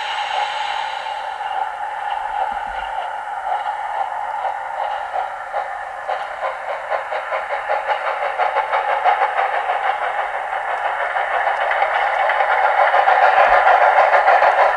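G-scale model steam locomotive of the Harz narrow-gauge class 99 5901 running with its train along garden track, a steady rolling and rhythmic chuffing noise of a few beats a second. It grows louder over the last few seconds as the train draws near.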